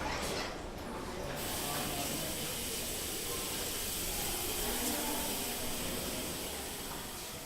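Water hissing steadily in a public washroom. It starts abruptly about a second and a half in and eases off near the end.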